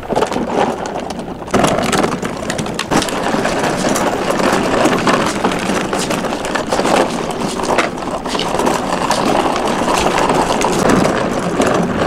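Plastic wheels of a child's ride-on pedal dump truck rolling over rough asphalt: a steady gritty rumble with scattered clicks and rattles, louder from about a second and a half in.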